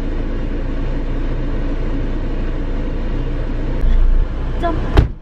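Steady rumble of a moving car heard from inside the cabin, engine and rough-road noise, with a louder stretch about four seconds in and one sharp knock near the end.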